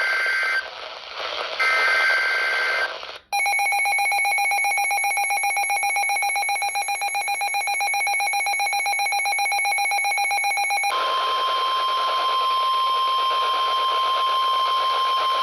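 Midland HH54VP weather radio sounding a NOAA Weather Radio alert: the tail of the SAME digital header, two short buzzy two-tone data bursts, coded as a winter storm warning. Then the radio's own rapidly pulsing alert alarm for about eight seconds, giving way about 11 seconds in to the broadcast's steady one-pitch warning alarm tone.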